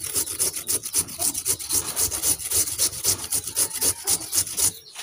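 Raw potato being grated by hand on a flat stainless-steel grater against a wooden board: quick, regular rasping strokes that stop shortly before the end.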